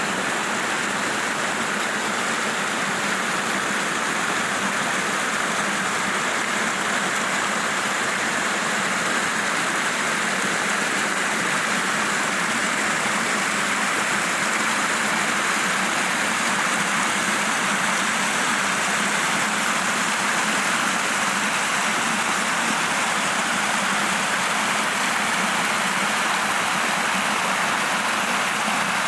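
Steady rushing of flowing water, as of a stream or small waterfall, unbroken and even in level.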